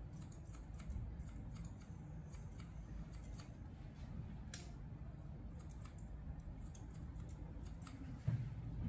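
Barber's scissors snipping hair in quick, irregular runs of cuts, over a steady low room hum. A brief low sound comes near the end.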